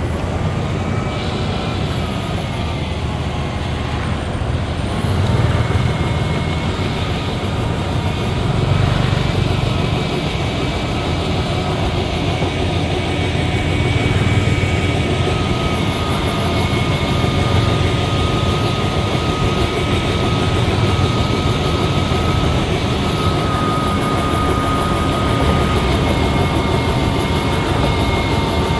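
Liugong motor grader's diesel engine running steadily under working load, with a thin steady whine above the drone and slight swells in level every few seconds.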